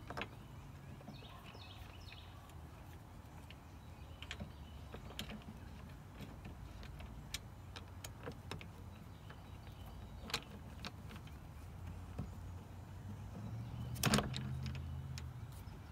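Scattered light clicks and taps of a grab handle and its bolts being fitted by hand to a roll bar, with one louder knock about fourteen seconds in. A faint low hum runs underneath.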